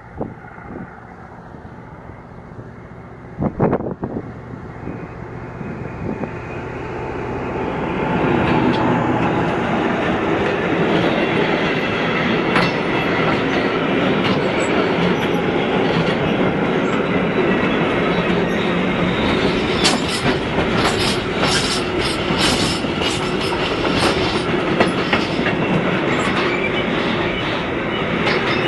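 A DB class 294 diesel-hydraulic shunting locomotive hauling a freight train: its engine hum grows louder as it approaches and passes close by. Then the open goods wagons roll past, their wheels clacking over the rail joints, and the clicks come thick and fast in the second half. There is one sharp knock about three and a half seconds in.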